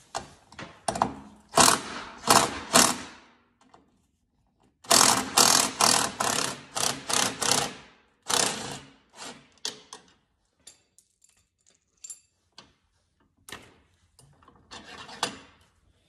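Socket ratchet clicking in two long quick runs, then a few short runs and light metal clinks, as the through-nut on a snowmobile's rear idler wheel shaft is zipped off.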